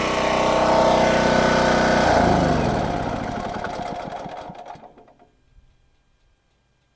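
Small portable generator engine running steadily, then switched off about two seconds in, its pitch falling as it winds down and coasts to a stop.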